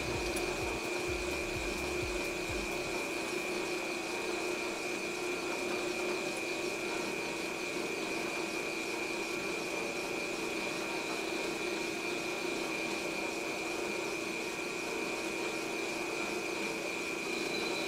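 Metal lathe running steadily as a carbide turning tool cuts a 6061-T6 aluminum workpiece: an even machine hiss with a steady whine. A higher tone joins near the end.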